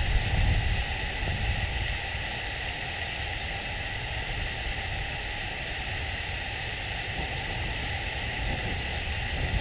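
Steady hiss of storm rain with a low rumble of wind on the microphone, the rumble easing through the middle and rising again near the end.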